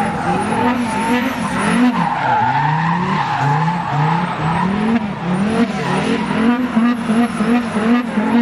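Turbocharged Mercedes OM605 inline-five diesel in a BMW E30 doing a burnout: the engine revs up and down over and over, quicker toward the end, over the rushing squeal of the spinning tyres.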